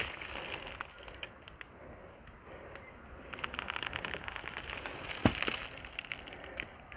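Footsteps crunching through dry leaf litter and sticks on a bush floor, with a run of quick crackling steps in the middle and one sharper crack about five seconds in.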